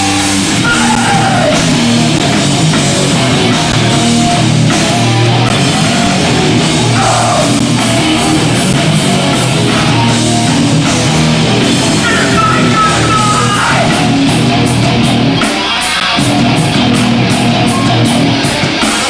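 Hardcore punk band playing live and loud: distorted guitars, bass and drums, with a short break in the low end about three-quarters through, followed by fast, even cymbal hits.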